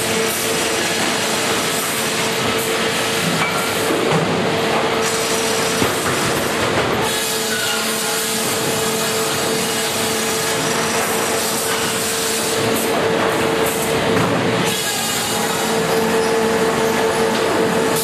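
Grey Series 2000 flitching and resaw system running as timber is sawn and fed along its powered roller conveyors. It makes a loud, continuous mechanical din with a steady hum underneath.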